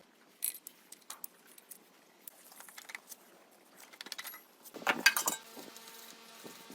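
Small metal parts and tools clinking and tapping in scattered light knocks, with a louder cluster of clinks about five seconds in.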